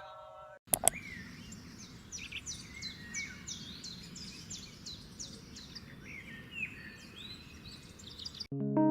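Birds chirping over a steady outdoor background hiss: a long series of quick, high, down-slurred chirps, several a second. Piano music starts just before the end.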